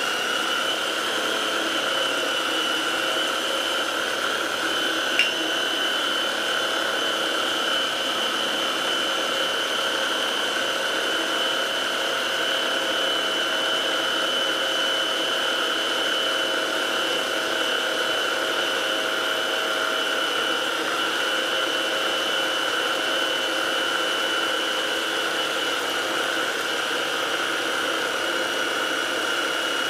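Small electric mini food processor motor running steadily with a constant whine, blending garlic and egg white while oil is drizzled in to emulsify it into a garlic dip. A single short click about five seconds in.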